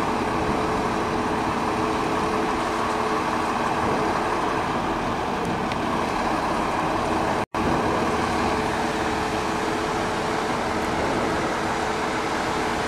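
Steady running of a Scania truck's diesel engine, idling fast to power the hydraulics of its truck-mounted aerial platform, with a brief break in the sound about halfway through.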